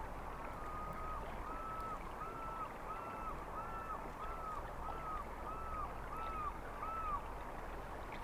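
An animal calling: a series of about ten short, evenly spaced calls, each rising and falling in pitch, over a steady low background rumble.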